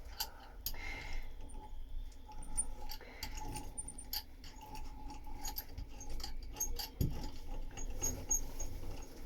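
Small metal bubble roller worked over resin-wet fibreglass mat, pressing out air bubbles and excess resin, with faint irregular clicks and pattering.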